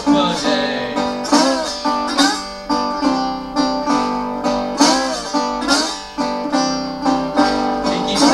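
Metal-bodied resonator guitar played with a slide: a blues instrumental of plucked notes that glide up and down in pitch.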